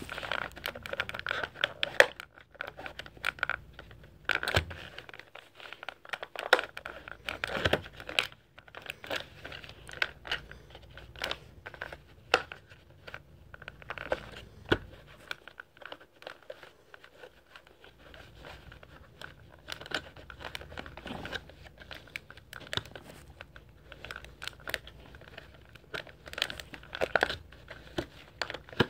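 Clear plastic action-figure packaging crinkling as hands work the figure out of its plastic sleeve and twist ties, with irregular sharp crackles and clicks.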